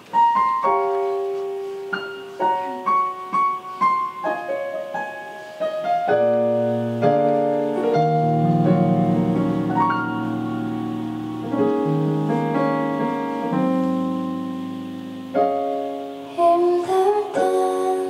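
Keyboard in a piano voice playing a slow, gentle intro of sustained chords and single notes, live; a woman's singing comes in near the end.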